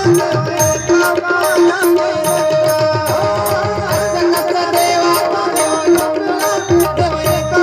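Instrumental music of a Marathi devotional gaulan: tabla playing a rhythm, its low bass-drum strokes bending in pitch, under a steady held melodic line.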